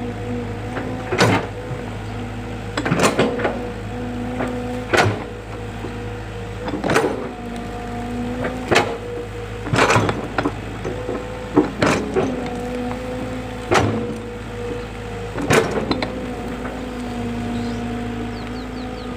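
Excavator's engine running steadily, its tone stepping up and down in pitch, with sharp knocks or clanks every one to two seconds.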